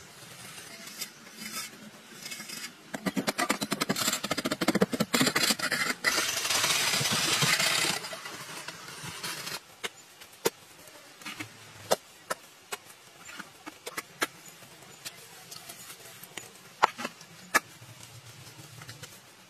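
Scraping and rubbing on packed earth as hands and simple tools shape and smooth earthen benches and walls. The scraping comes in a loud, rapid run from about three seconds in until about eight seconds, followed by scattered light taps and clicks.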